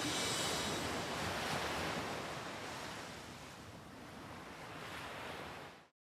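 Steady wash of ocean surf noise, slowly fading and then cutting off abruptly just before the end.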